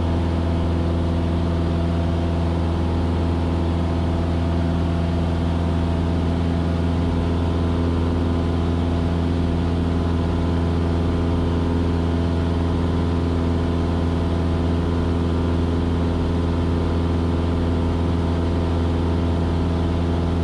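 Cessna 172S's four-cylinder Lycoming IO-360 engine and propeller running steadily in flight: a constant drone with a strong low hum and an even stack of steady tones above it.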